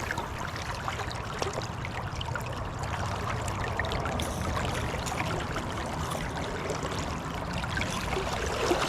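Water trickling and lapping, with many small clicks and ticks scattered through it.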